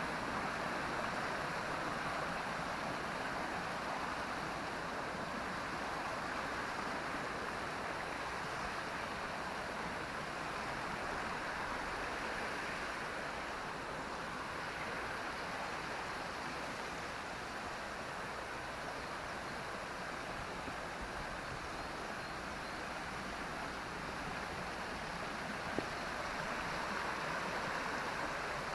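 Flowing water rushing steadily, an even hiss without breaks or pauses.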